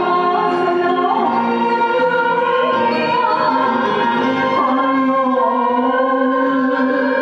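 A man and a woman singing a Japanese enka duet through microphones, over steady instrumental accompaniment.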